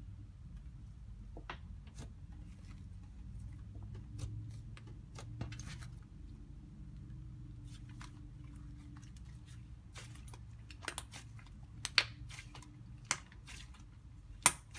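Thick paper slime made with toilet paper, glue and flour being stretched, squeezed and kneaded by hand, giving scattered sharp clicks and pops. They are sparse at first and come thicker and louder in the last few seconds.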